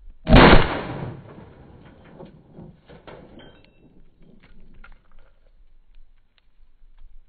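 A single gunshot about a third of a second in, its echo trailing off over about a second, followed by a few faint clicks.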